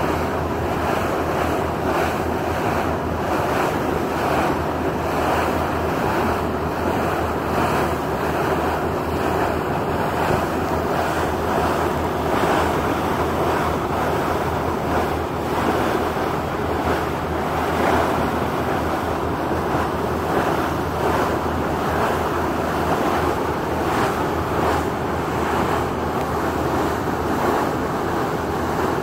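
Wind buffeting the microphone over the rush of water along a moving ferry's hull, steady throughout, with a low drone from the boat's engine underneath.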